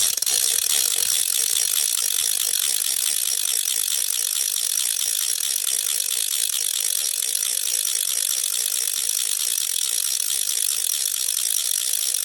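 3D-printed plastic fidget clicker spun hard, its gear ratcheting so fast that the clicks run together into a loud, steady rattle.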